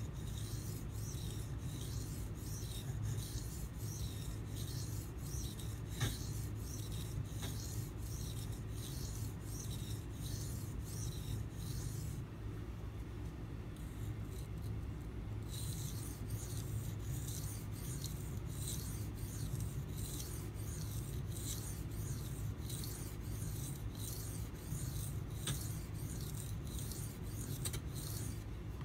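Steel knife blade stroked back and forth on a sharpening water stone, an even rasping rhythm of about two strokes a second, with a pause of about three seconds near the middle. A steady low hum runs underneath.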